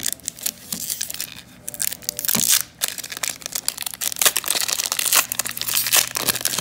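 Shiny wrapper of an Upper Deck hockey card pack being torn open and crinkled by hand: a dense run of crackling rips and crinkles.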